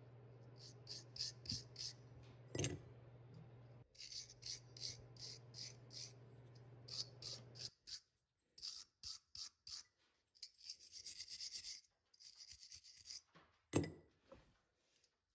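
Rough sand-cast brass hand-plane bodies scraping and rubbing in the hands as they are turned over, in many quick short strokes, with two light knocks, the louder one near the end. A low steady hum underneath stops about halfway through.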